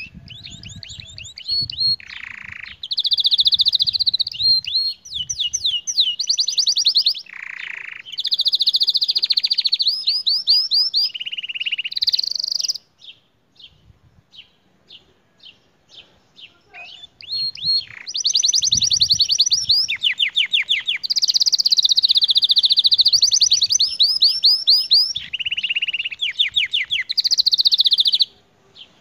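Domestic canary singing: long, fast high-pitched trills and rolling phrases, broken in the middle by a few seconds of only scattered chirps before the song resumes.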